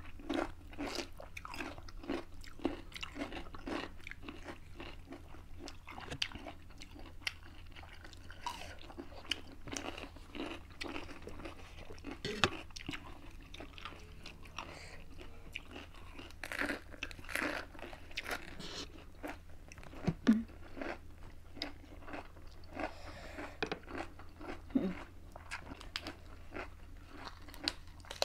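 Close-up crunching and chewing as people bite into fresh lettuce-leaf wraps, a run of irregular crisp bites.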